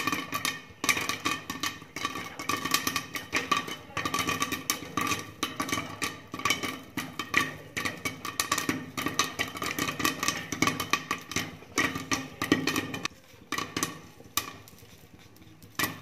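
Popcorn popping in a covered kadhai with a glass lid: a dense, irregular run of sharp pops and knocks of kernels bursting and hitting the lid. The pops thin out and get quieter over the last few seconds as the batch nears the end of popping.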